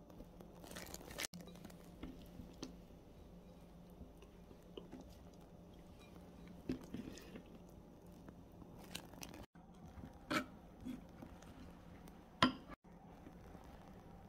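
Faint handling sounds: a few soft, separate knocks as cubes of acorn jelly are set into a stoneware bowl, over a steady low hum.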